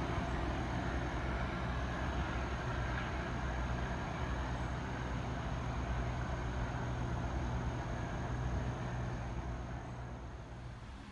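Diesel commuter train pulling away, its engine droning steadily at a low pitch and fading in the last couple of seconds as it goes off into the distance.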